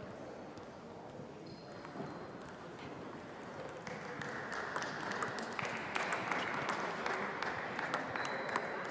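Table tennis hall ambience between points: scattered, irregular clicks of table tennis balls striking tables and bats at the surrounding tables, over a steady murmur of voices in the hall that grows louder about halfway through.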